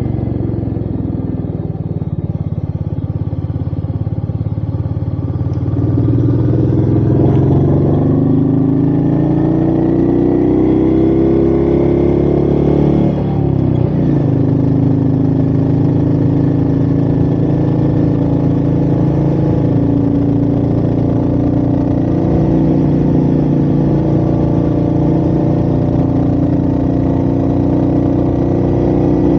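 Royal Enfield Meteor 350's single-cylinder engine pulling under acceleration. Its pitch and loudness rise for several seconds, break briefly at a gear change about halfway through, then hold steady at a higher pitch.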